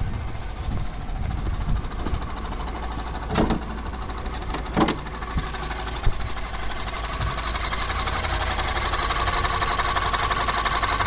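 2011 Ford F-150's 3.5-litre EcoBoost twin-turbo V6 running with a knocking that the owner hopes is nothing serious; a replaced mechanical fuel pump has not cured it. There are two short sharp noises about three and a half and five seconds in, and the engine sound grows louder from about seven seconds in.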